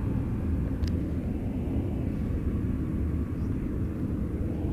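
Steady low rumbling drone from an unseen, unidentified source. The listeners suspect an extraction fan somewhere and reject aircraft.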